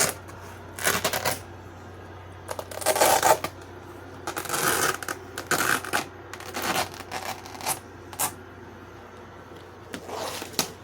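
Velcro hook-and-loop strips and a canvas being handled: a series of short, scratchy rips and rustles, about a dozen spread irregularly.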